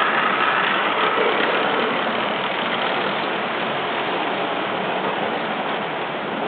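Model trains running on a layout: a steady whirr of locomotive motors and wheels on track, with a faint motor whine that fades in the first second.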